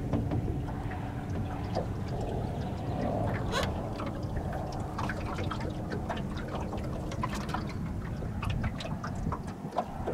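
Small waves lapping and splashing against a boat's hull in irregular little slaps, over a steady low rumble of wind on the microphone.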